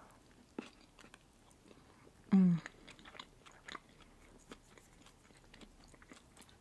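Close-up chewing of a bite of white bread with butter and red caviar, wet mouth clicks throughout. One short hum about two and a half seconds in, falling slightly in pitch.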